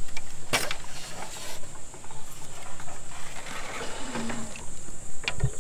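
A bamboo gate being handled and pushed open: knocks and rattles of bamboo poles, a short creak about four seconds in, and a couple of knocks near the end.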